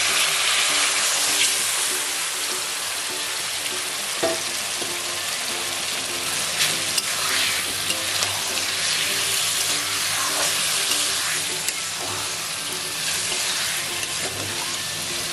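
Marinated chicken liver and gizzard sizzling loudly in hot mustard oil in a kadai, just after going into the pan, with scattered clicks and scrapes of a metal spatula stirring against the pan.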